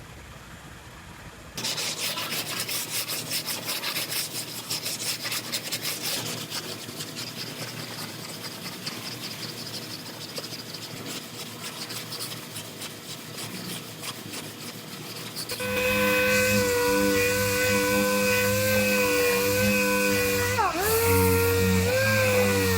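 Rapid rasping strokes, sanding or filing on a car body panel under repair. About 16 seconds in, a power tool starts and runs with a steady whine whose pitch dips sharply twice near the end.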